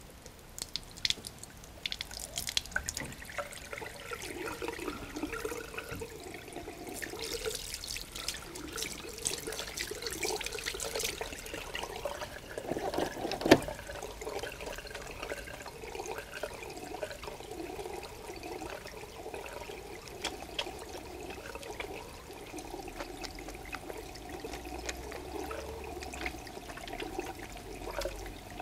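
Tap water running into a ceramic hand-wash basin while hands are washed under it, with scattered small clicks and splashes early on. A single sharp knock comes about 13 seconds in.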